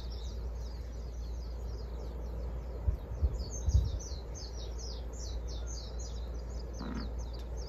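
Birds chirping in a continuous run of rapid, high-pitched notes, over a steady low rumble and a few soft thumps.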